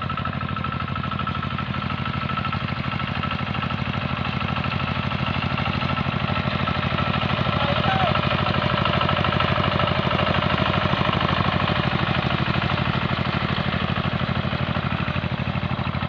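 Two-wheel hand tractor's engine running steadily with a fast putter while it tows a leveling board over ploughed soil. It gets louder as the machine passes close about halfway through, then eases off.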